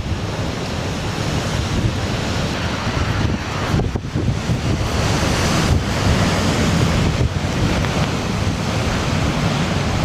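Heavy storm waves breaking on rock ledges and water pouring back off them, a continuous loud wash of surf, with strong wind buffeting the microphone.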